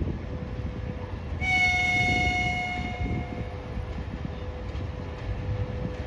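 VL80S electric freight locomotive sounding its horn once, a steady blast of about a second and a half starting a little over a second in. Under it runs a steady whine from the locomotive's ventilation fans, the "vacuum cleaner" sound, over a low rumble as it pulls its freight train away.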